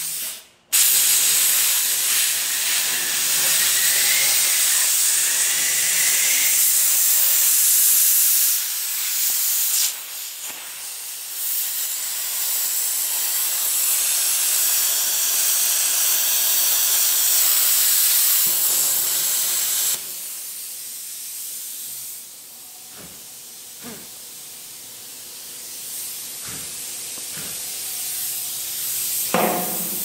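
Metal-cutting torch hissing steadily as it cuts a welded hinge out of a steel dump truck bed. It starts abruptly right at the start, dips briefly about nine seconds in and drops off sharply at about twenty seconds. After that a quieter hiss is left, with a few light knocks.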